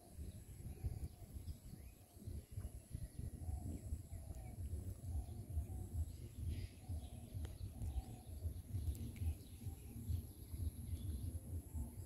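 Wind buffeting the microphone in a low, gusty rumble over open wetland fields, with faint bird chirps and calls scattered through it.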